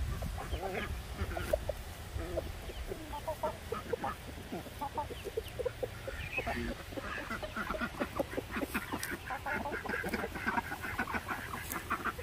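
Backyard poultry (chickens and ducks) calling: a steady stream of short clucks and calls, which grow faster and higher-pitched from about halfway through.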